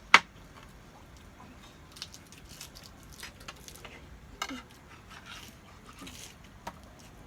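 Tableware clinking and tapping at a meal, scattered small clicks and clatters, the loudest a single sharp clink just after the start.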